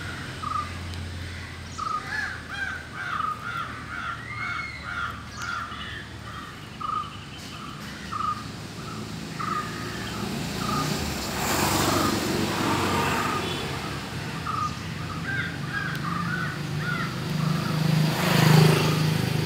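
A bird calling over and over in short notes, about two a second, with passing-vehicle noise swelling up about twelve seconds in and again, louder, near the end.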